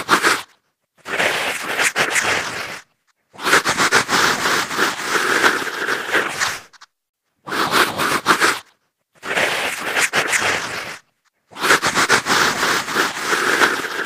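Female zombie vocal sound effect: a woman's harsh, raspy growls and snarls in a series of separate bursts, about six in all, each one to three seconds long with short silent breaks between them.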